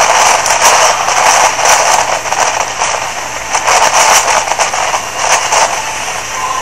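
Strong wind buffeting the microphone: a loud, continuous rushing noise that swells and dips in gusts.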